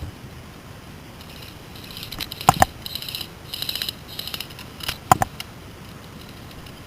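Airsoft guns firing in several short rapid bursts, with two louder sharp snaps about two and a half and five seconds in.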